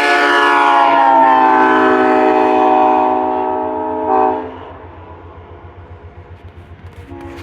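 Diesel locomotive's multi-chime air horn sounding a long blast of several notes, its pitch falling slightly, cutting off about four seconds in. Then the train's low rhythmic pulsing, and the horn starts again near the end.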